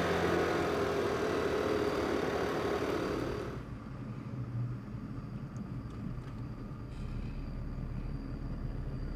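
Motorcycle running along a road at speed, its engine and road noise loud and dense, cutting off suddenly about three and a half seconds in to the quieter low, steady hum of a car's cabin while driving.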